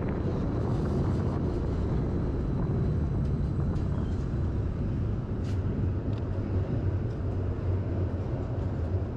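Tram running alongside a tram stop, a steady low rumble.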